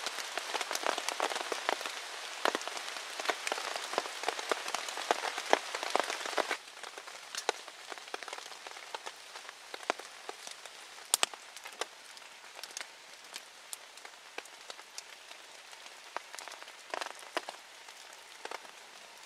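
Heavy rain falling on the woods, a steady hiss with many separate drops striking close by. About six seconds in it suddenly drops to a lighter level, with scattered louder drops after that.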